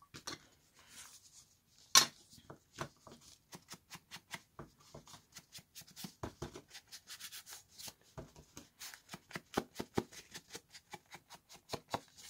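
Foam ink dauber dabbing and rubbing brown ink onto a kraft paper envelope to stain it, a rapid run of short scuffing taps, about three to four a second. One sharper knock stands out about two seconds in.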